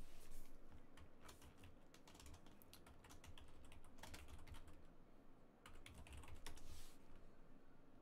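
Faint typing on a computer keyboard: irregular key clicks.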